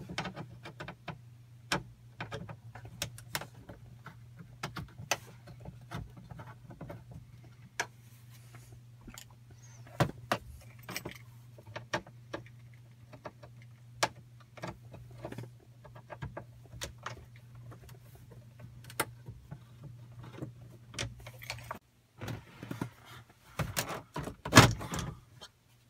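Light clicks and taps of a hand screwdriver on plastic dash trim as T15 Torx screws are backed out of the instrument cluster bezel, over a steady low hum. Near the end, a louder run of plastic scraping and a sharp snap as the upper dash trim panel is pulled free of its clips.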